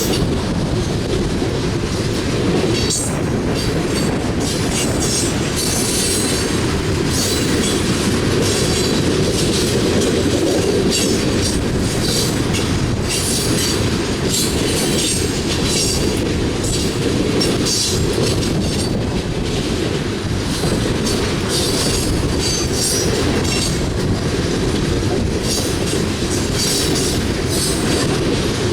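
Coal train cars rolling past: a steady heavy rumble with wheels clattering over the rails and frequent brief high-pitched squeals and clicks.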